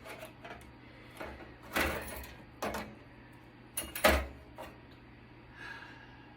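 A few separate knocks and clatters of hard parts being handled on a work surface, the loudest two close together about four seconds in.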